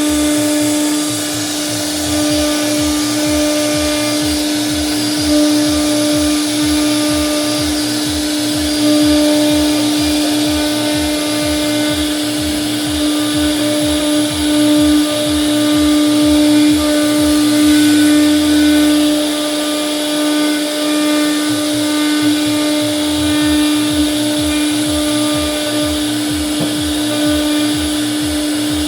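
CNC router spindle running with a steady high whine while routing wood, over a low pulsing about three times a second.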